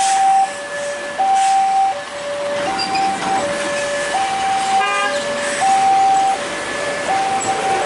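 Railway level-crossing warning alarm sounding a steady two-tone alternation, high then low, changing about every 0.7 s, over the noise of passing trucks and cars. A short horn toot cuts in about five seconds in.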